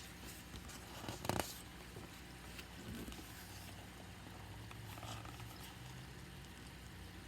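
Faint handling noise, with a brief rustle about a second in, over a steady low hum.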